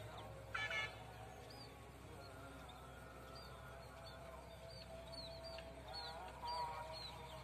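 Open rice-field ambience: small birds chirping over and over, with two short, louder calls, one about half a second in and one near the end.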